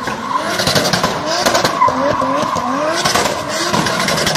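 2JZ-swapped Subaru Impreza doing donuts: the engine revs up and down over and over while the tyres spin and squeal on the tarmac.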